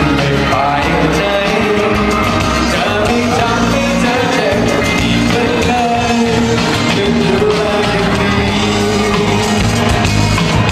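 A male vocalist sings a Thai pop song live into a handheld microphone over amplified backing music.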